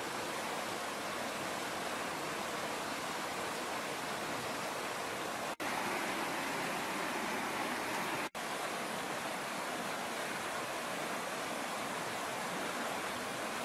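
Steady rushing noise like running water, even and unbroken, cut out twice for a split second.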